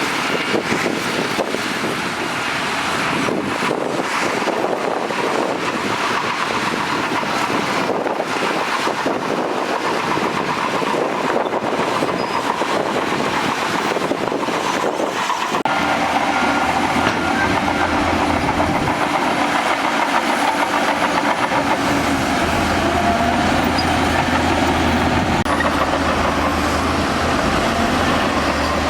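Crawler bulldozer working: the diesel engine running with a clattering, squealing noise from the steel tracks. About halfway through, the sound changes to a steadier low engine drone.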